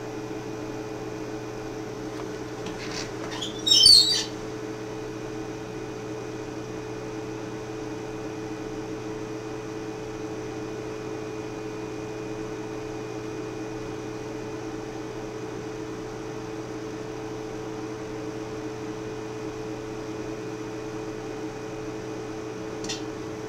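Steady hum of running equipment made of a few low, steady tones. About four seconds in comes one brief, high-pitched chirp.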